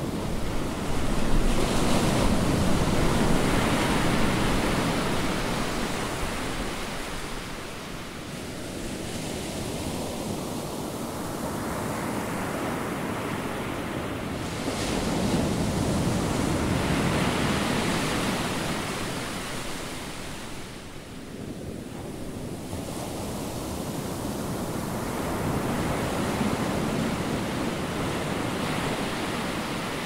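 Ocean surf: waves washing onto a beach in a steady rushing noise. It swells and ebbs in three surges about twelve seconds apart, the loudest a little after the start.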